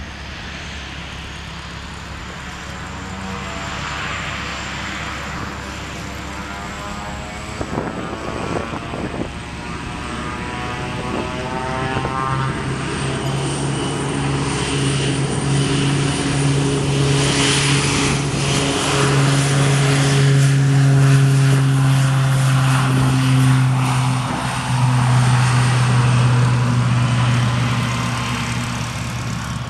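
Twin-turboprop Beechcraft King Air taxiing: a steady propeller drone under a high turbine whine. It grows louder as the aircraft comes closer, rises in a step about 25 seconds in, and eases off near the end.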